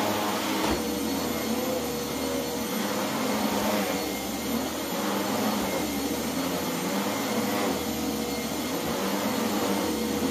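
Upright vacuum cleaner running steadily on the floor: a continuous motor drone that swells and eases a little every couple of seconds.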